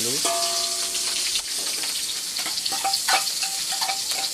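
Chopped shallot, garlic and green chilli dropped into very hot oil, sizzling loudly at first and settling to a steadier sizzle after about a second and a half, with a few utensil knocks.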